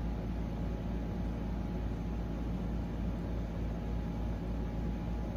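Opened JBL Charge 5 portable speaker playing deep bass: a steady low rumble with faint low tones above it. It is a test of whether the bass fault is cured after an internal wire that vibrated at high bass was packed with cotton.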